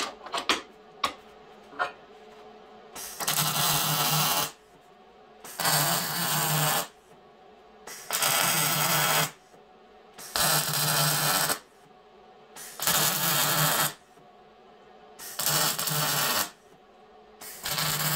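Wire-feed welder arc crackling in seven short welds of about a second each, with roughly a second's pause between them, as a steel reinforcement plate is stitch-welded section by section to a truck frame. A few clicks and knocks of handling come in the first two seconds.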